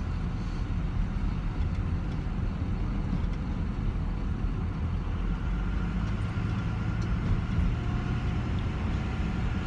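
Steady road and engine noise inside the cab of a moving pickup truck, mostly a low, even rumble.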